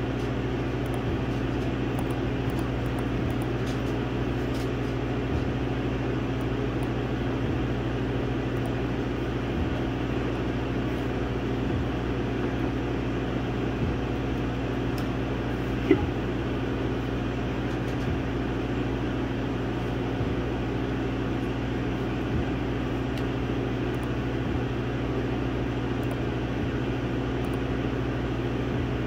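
Laser engraver running as it burns a design into wood: a steady mechanical hum with a constant low tone, faint ticks now and then, and one sharp click about halfway through.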